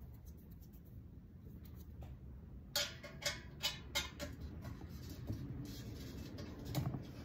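Small metal clicks and scraping as a hand tool works the handle fitting of a titanium sand scoop. A quick run of sharp clicks comes about three seconds in, then softer rubbing.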